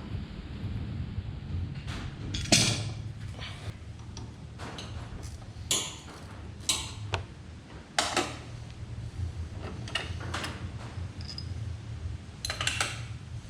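Hand work on an excavator's fuel filters: scattered clicks, clinks and knocks of parts being unscrewed and handled, at irregular intervals over a steady low hum.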